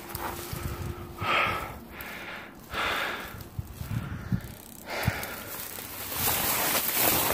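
A hiker breathing hard with exertion while scrambling up a slope, in heavy puffs about every second or two. Low scuffs and knocks from footsteps and handling run underneath.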